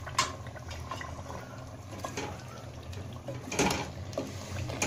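A wooden spoon stirring yogurt into a thick masala and chicken in a metal cooking pot: wet squelching and scraping, with a few knocks of the spoon against the pot, the loudest about three and a half seconds in. A steady low hum runs underneath.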